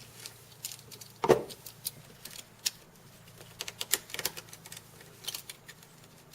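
Irregular clicks and taps of hard 3D-printed plastic parts handled and pushed together, as a nut is tried in a handle hole that is slightly too tight, with one louder knock about a second in.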